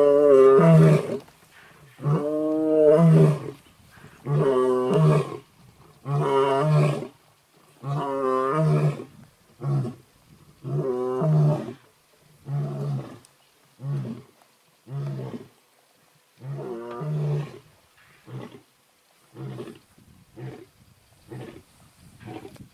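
Lion roaring in a full bout: several long, loud roars about two seconds apart, giving way to shorter, quieter grunts that come faster and fade toward the end.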